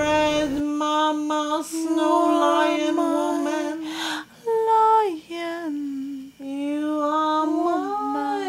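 A woman's voice singing long, held wordless notes a cappella, with breaths between phrases and a downward slide in pitch about five seconds in. A low accompanying drone drops out about half a second in.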